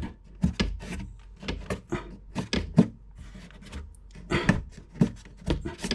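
Hands working a diesel heater's hot-air duct fitting through an RV wall: scattered clicks, knocks and rubbing, with one sharper knock about three seconds in.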